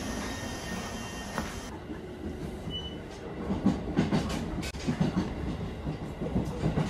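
Inside a moving JR Central 313 series electric train: a steady running rumble, with the wheels clattering over rail joints in an uneven run of knocks from about three and a half seconds in.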